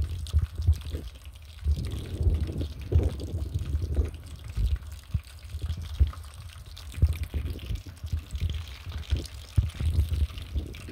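Potato slices frying in oil in an aluminium pot, the oil bubbling and popping softly in the early stage of frying. Wind buffets the microphone with an uneven low rumble.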